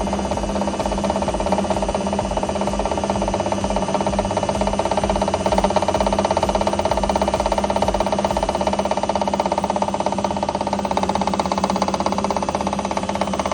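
IFB front-load washing machine running, a steady motor hum with a fast, continuous rattle.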